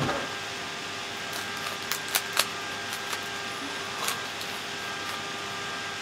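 A few short plastic clicks and clacks from a Rubik's cube being picked up and handled, scattered through the first four seconds, over a steady background hiss.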